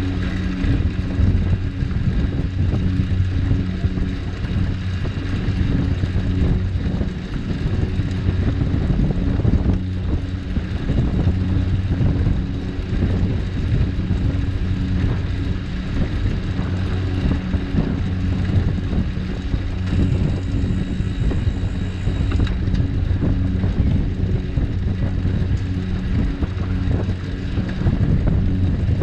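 Wind buffeting the microphone of a camera on a moving cargo bike, a steady low rumble that never lets up. A steady low hum runs underneath.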